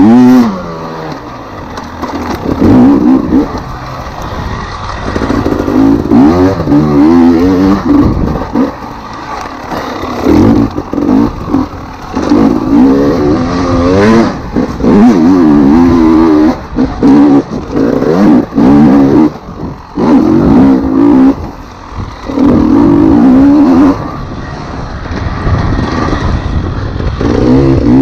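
Enduro dirt bike engine revving up and falling back again and again as the throttle is opened and closed over rough, muddy trail.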